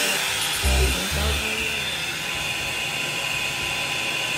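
Revlon blow dry brush running: a steady rush of hot air with a high hiss. Music with a bass beat plays over it for about the first second and a half.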